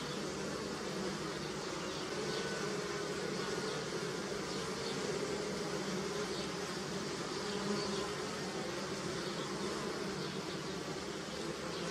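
Honey bees foraging on flowering willow make a steady, continuous buzzing hum. Its pitch drifts slightly as individual bees come and go.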